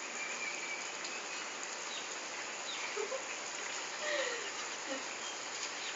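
Steady outdoor background hiss, with a few faint short chirps and a brief falling call about four seconds in.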